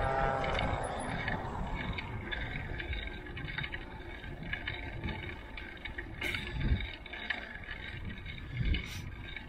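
Wind buffeting the microphone and tyre noise from a mountain bike rolling along a concrete path, with a few short thumps from about six seconds in.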